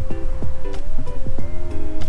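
Background music with a steady beat, plucked notes and a held tone that bends up and back down.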